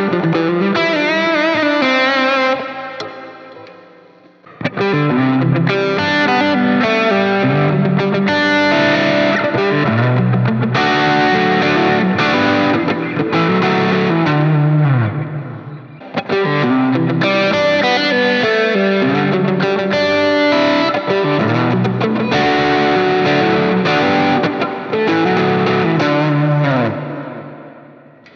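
Extended-range electric guitar with humbucker pickups, played through an amp with a low-gain, lightly overdriven lead tone. It plays melodic licks in phrases, with a wavering held note at the start, two long runs with a short pause between them, and notes ringing out and fading near the end.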